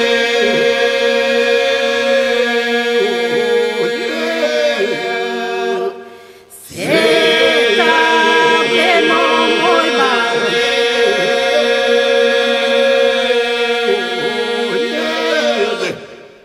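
Albanian Lab polyphonic folk song sung a cappella: a steady held drone (the iso) under lead voices whose lines bend and ornament above it. The singing breaks off briefly about six seconds in, starts again, and fades away near the end.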